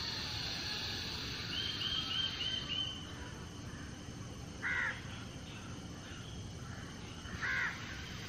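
A crow cawing twice, once about halfway through and again near the end, each call short. About two seconds in, a quick run of high chirps from another small bird is heard, over steady outdoor background noise.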